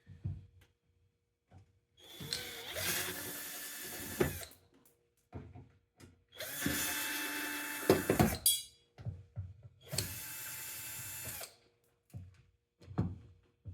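Electric drill-driver running in three bursts of about two seconds each, backing out the screws of a microwave oven, with small clicks and knocks of handling between the bursts.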